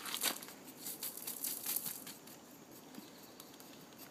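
A brush scratching through a dog's coat in quick repeated strokes, fading after about two seconds.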